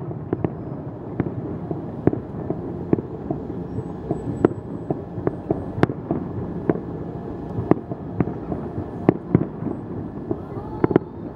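Aerial firework shells bursting in a dense, irregular series of sharp bangs, roughly one to two a second, over a continuous low rumble.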